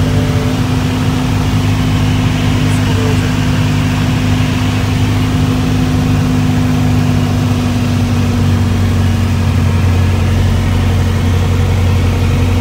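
Single-engine light airplane's piston engine and propeller droning steadily, heard from inside the cockpit during the landing approach and touchdown. The pitch lowers slightly about halfway through.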